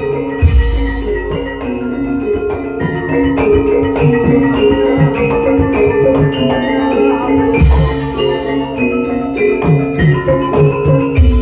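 Javanese gamelan playing live: metallophones and kettle gongs ring out a dense run of struck, sustained notes. Deep strokes, each with a bright splash, land about half a second in, at about eight seconds and near the end.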